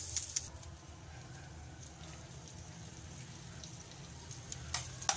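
Onions and garlic frying in butter in a steel frying pan, a hissing sizzle that drops to a quieter bubbling about half a second in. Two sharp clicks come near the end.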